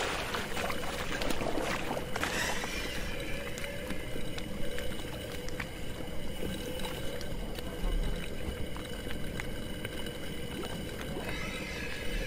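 Underwater rush and bubbling of air streaming from a freediver's inflated lift bag during a fast ascent, strongest in the first few seconds, over a steady low hum.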